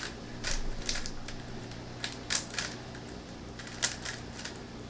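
Rubik's Cube being turned rapidly by hand in a timed speed-solve: irregular plastic clicks and clacks of the layers snapping round, a few a second, with a sharper click nearly four seconds in.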